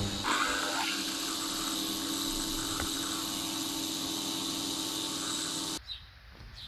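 Ultrasonic cleaner running with a loud, steady buzzing hiss while bike parts soak in its stainless-steel tank. It cuts off abruptly about six seconds in, leaving a much quieter background with a few light ticks.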